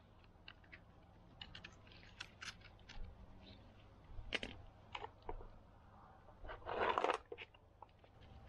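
Small plastic clicks and scrapes from a wiring-loom connector being worked with gloved hands and a small metal tool, with a louder rough crunching rustle lasting about half a second around seven seconds in.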